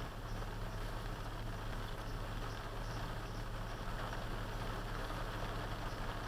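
Truck driving in the rain: a steady low engine hum under a constant hiss of rain and wet road noise.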